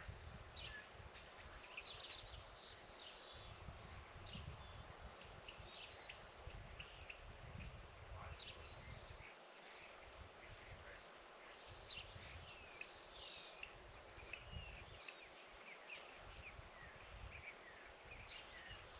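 Faint birdsong: several birds chirping and whistling in quick short phrases, over a low uneven rumble of wind on the microphone.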